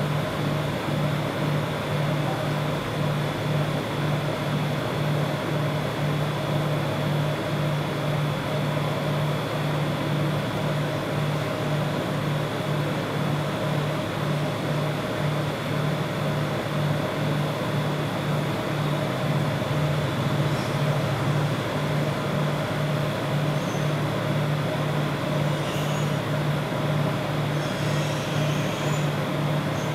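Steady mechanical hum with a low drone that pulses evenly about twice a second and a thin high whine above it.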